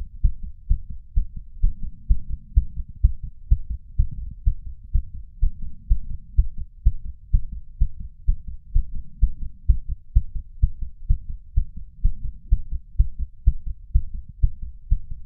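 A man's heart racing after exercise, beating fast and evenly at about 130 beats a minute as low, dull thumps. It is picked up through a lapel mic in a small ceramic bowl.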